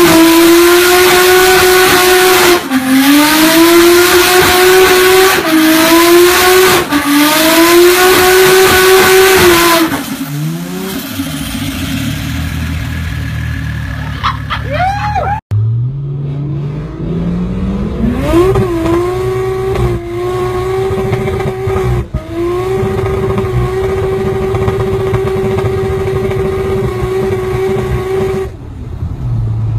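Toyota JZ-series straight-six held at high revs through a burnout, over the steady hiss of screeching tyres; the revs sag and recover a few times, then fall away about ten seconds in. After a cut, a JZ-engined car accelerates, its revs climbing and then held steady for about ten seconds with two brief dips.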